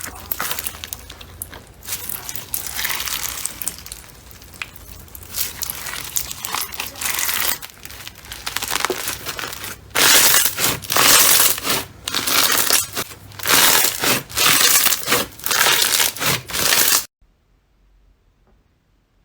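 Slime being squeezed and kneaded by hand, with a crackling, crinkling sound. About ten seconds in, a run of louder squeezes starts, repeated at a steady pace, and it cuts off suddenly near the end.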